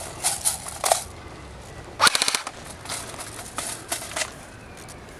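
Airsoft gun firing a short full-auto burst of rapid clicking shots, under half a second long, about two seconds in. Scattered single sharp clicks and knocks come before and after it.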